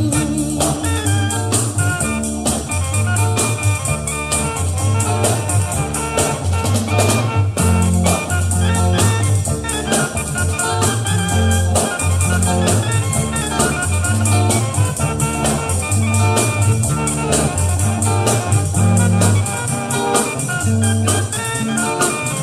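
Instrumental break of a Thai luk thung song: a band playing with a drum kit keeping a steady beat under a walking bass line.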